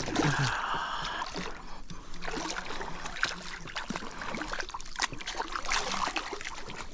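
Water splashing and dripping with short knocks and rustles against a kayak as a just-landed bass is lifted and handled.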